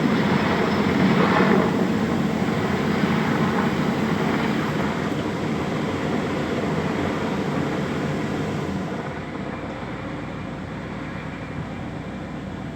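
Large helicopter in flight, its rotor and engine noise a steady, dense roar that gradually fades as it moves away.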